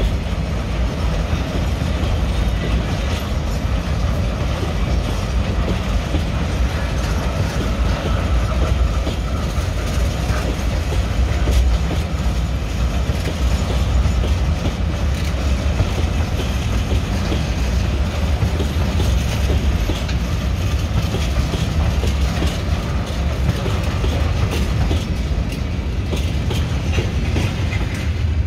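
Train running on rails: steady, deep running noise with wheel clatter over the rail joints.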